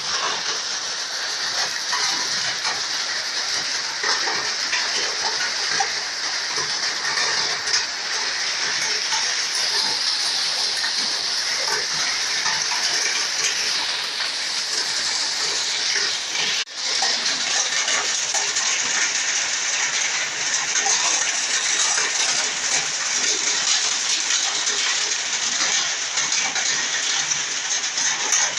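Heavy rain mixed with hail pouring down steadily: a dense hiss of falling water with many small taps of drops and hailstones striking. The sound drops out for an instant about seventeen seconds in.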